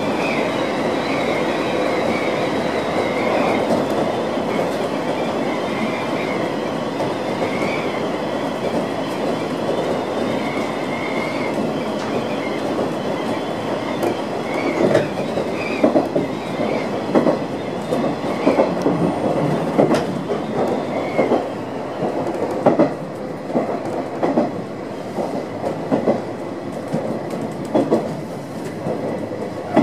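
Chichibu Railway 1000 series (ex-JNR 101 series) electric train running, heard from the driving cab. Steady running noise with a high wavering whine for the first half, then from about halfway the wheels click over rail joints in an uneven clickety-clack.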